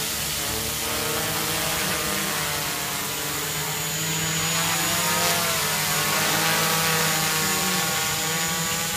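Quadcopter hovering low: the steady hum of its four electric motors and spinning propellers, several pitches sounding together and wavering slightly up and down as the motor speeds change.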